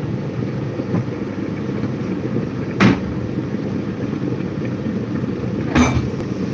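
Steady low rumble, with a sharp knock about three seconds in and a wooden kitchen cupboard door banging shut near the end.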